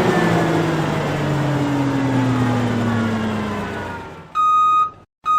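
A machine's whine with a rushing noise, its pitch falling steadily as it winds down and fades out over about four seconds, followed by evenly repeated electronic beeps like a reversing alarm, one about every 0.85 seconds.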